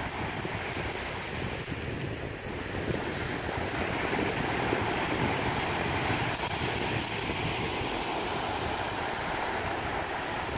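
Wind buffeting the microphone over the steady wash of small waves on open water.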